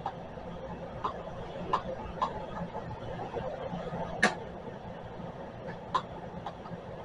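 Cooling blower of a two-4CX250B tube linear amplifier running with a steady hum, and a few short sharp clicks scattered over it, the loudest about four seconds in.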